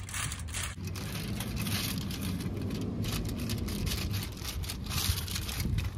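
A rolling pin rolled over aluminium foil laid on a tray of set besan barfi, pressing it level: a continuous low rumble with foil crinkling, a little louder from about a second in.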